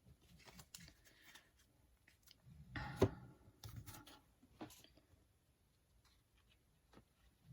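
Hands quietly handling trading cards: scattered soft rustles and small clicks, with one sharper tap about three seconds in.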